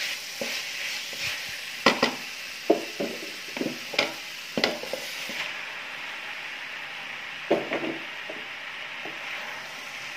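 Stir-fried vegetables and chicken sizzling in a metal pan, with scattered sharp knocks and scrapes from a wooden spoon stirring against the pan; boiled elbow macaroni is added and tossed through.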